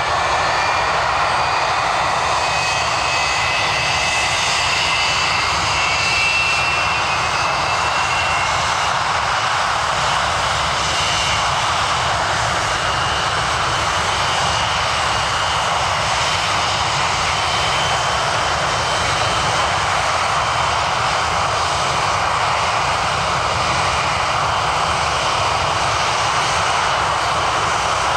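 BAC Lightning F.6's Rolls-Royce Avon turbojets running steadily on a ground run: a loud, even jet roar with a high whine that rises slightly in pitch over the first several seconds, then holds.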